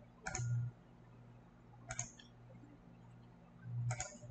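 Computer mouse clicking, three short clicks about two seconds apart, over a faint steady low hum.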